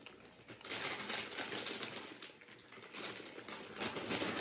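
French bulldog licking food off a silicone lick mat: a fast, dense run of wet clicks and smacks from the tongue and mouth.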